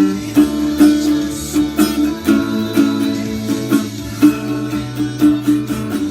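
Acoustic guitar strumming chords in an instrumental passage of a pop song, with a strum about twice a second.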